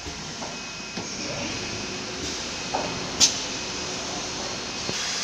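Steady running noise and hiss of a CNC machining center for furniture panels, with a few light knocks and one sharp click about three seconds in.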